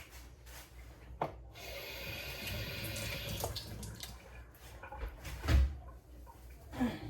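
Kitchen tap running for about three seconds, then shut off, with a few light knocks and a heavy thud about five and a half seconds in.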